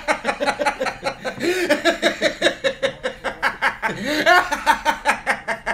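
Hearty male laughter in rapid, repeated 'ha-ha' pulses, about six a second. Around four seconds in it climbs higher and louder.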